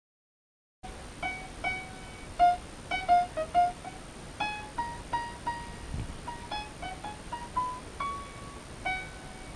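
Background music: a keyboard melody of single notes, about two a second, each fading away. It starts about a second in, after a moment of complete silence.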